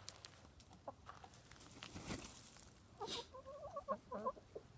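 Chickens clucking: a short run of wavering calls about three seconds in, after a brief rustle.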